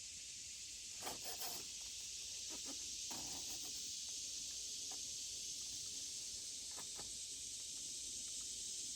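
A steady, high-pitched hiss, with a few faint clicks in the first few seconds.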